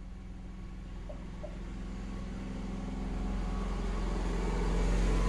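A motor vehicle's engine running with a low, steady hum, growing steadily louder.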